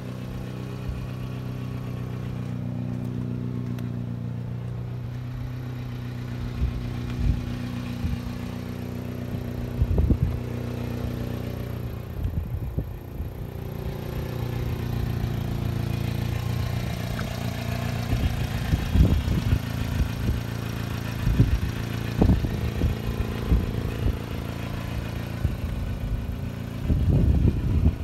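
1992 Subaru Sambar KS4 kei truck's small 660 cc four-cylinder engine idling steadily. Irregular low rumbles and thumps become more frequent in the second half.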